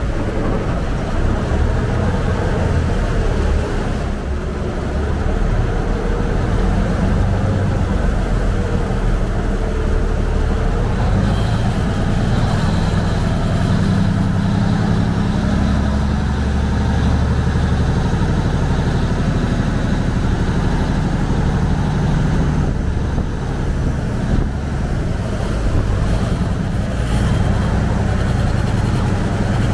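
Canal taxi boat's engine running steadily under way, a loud low rumble heard from on board, with water rushing past the hull.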